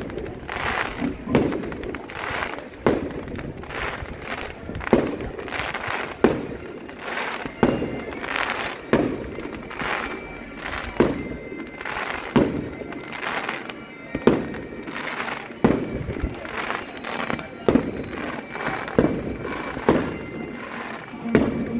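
Fireworks display: aerial shells bursting in a steady series of sharp bangs about every one to two seconds, each bang trailing off into a rumbling tail.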